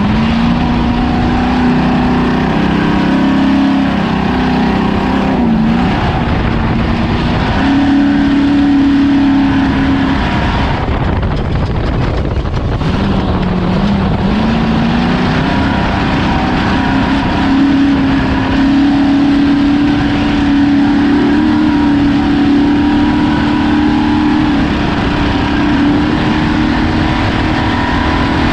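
Off-road race vehicle's engine running hard at high revs over a steady loud rush of noise. Its pitch dips and climbs back twice, about five and twelve seconds in, then holds high.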